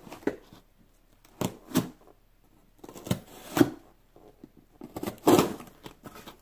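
Cardboard shipping box being opened by hand: a series of about seven short, sharp rips and scrapes of tape and cardboard, the loudest and longest about five seconds in.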